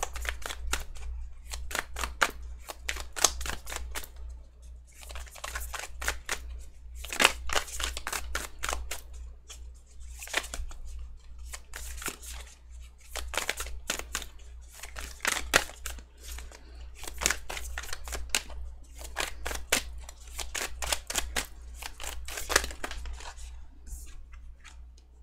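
A deck of tarot cards being shuffled by hand: several runs of quick card flicks and snaps with short pauses between them. A low steady hum runs underneath.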